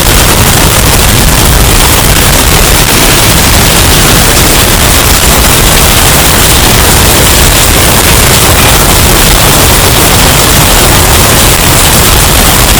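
Hurricane storm sound effect, bass-boosted and overdriven into a constant, very loud, distorted rush of noise with no let-up.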